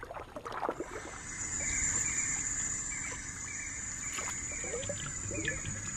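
Amazon rainforest ambience: a steady high insect drone sets in about a second in, with scattered short chirps over a low background hiss.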